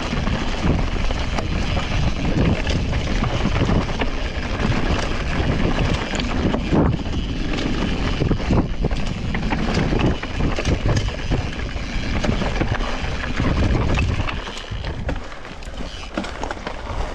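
Mountain bike descending a rough dirt forest trail at speed: tyre rumble over roots and bumps, with the bike's frame and parts rattling and clattering and wind buffeting the action camera's microphone. The noise eases a little near the end.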